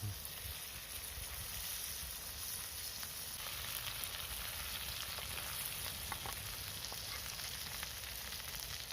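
Food sizzling over a campfire: a steady frying hiss, with a few faint clicks about six seconds in.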